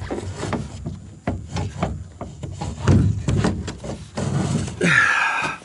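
Irregular knocks, clicks and rubbing from handling, followed near the end by a short wavering call.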